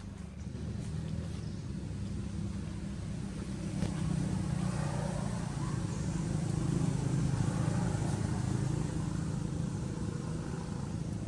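Low engine rumble of a motor vehicle, growing louder about four seconds in and easing slightly near the end.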